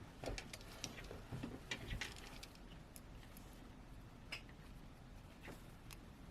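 Faint scattered clicks and taps of a small screwdriver and tiny screws being handled and driven into a smartphone's frame, most of them in the first two seconds.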